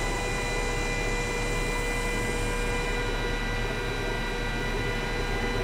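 Glowforge laser cutter running as it marks pre-anodized aluminum, burning off the anodizing. It gives a constant hum with a steady high whine and no change in level.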